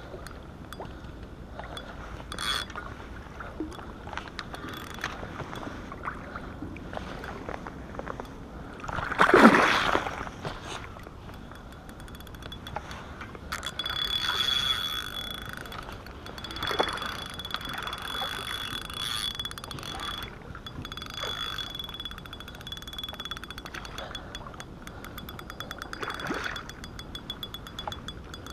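A hooked asp thrashing and splashing at the water's surface as it is played on a spinning rod, with the spinning reel being wound in. One moment about nine seconds in is much louder than the rest.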